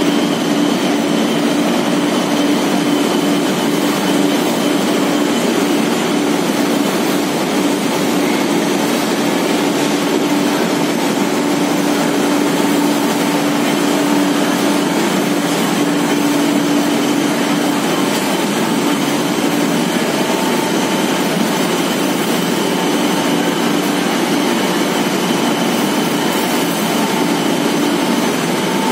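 Line of cotton waste opening machines running steadily while cotton cutting waste is fed through, their electric motors and chain-and-belt drives making a loud, even mechanical noise with a steady hum.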